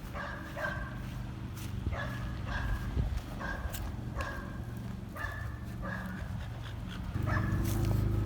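A dog barking in short, evenly spaced yips, over a low steady hum that gets louder about seven seconds in.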